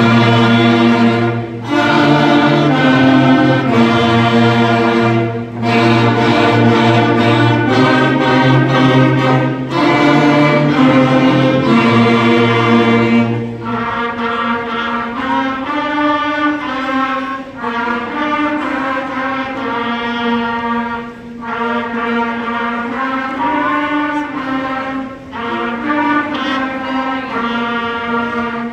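A school concert band of woodwinds and brass playing a piece, with a full sound and steady low bass notes. About halfway through the bass drops out and the band carries on more quietly in the upper instruments.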